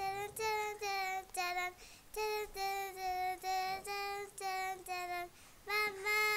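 A young girl singing a children's song unaccompanied, in short held syllables on a few nearly level notes. The phrase ends near the end on a louder, drawn-out note that falls away.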